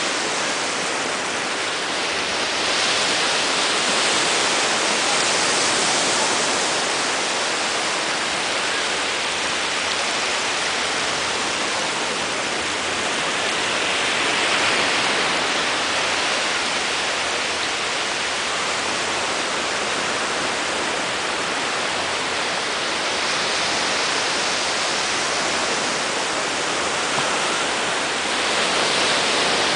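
Small ocean waves breaking and washing up the shore: a steady rush of surf that swells louder every ten seconds or so as a wave breaks.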